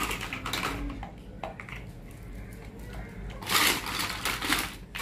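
Hard plastic toys and building blocks clicking and clattering as they are handled and sorted through, with a louder burst of rummaging about three and a half seconds in.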